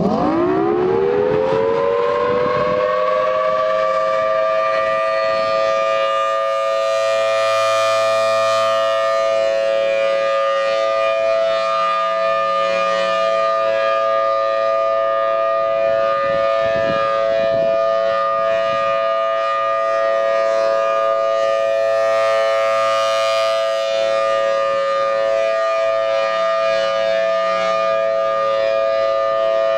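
Federal Signal Thunderbolt 1000T outdoor warning siren winding up to full pitch in about two seconds. It then holds a steady two-note wail, a tornado siren test sounding a steady alert.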